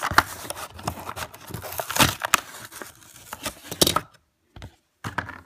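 Clear plastic blister pack being torn and pulled off its cardboard backing card: crinkling and crackling with a few sharp snaps for about four seconds, then a couple of soft knocks.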